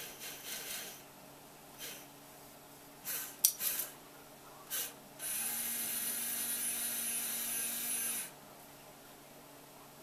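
Small electric motors and gearing of a scratch-built model railroad crane, run in several short bursts, then steadily for about three seconds with a whirring hiss and a low hum. There is a sharp click about three and a half seconds in.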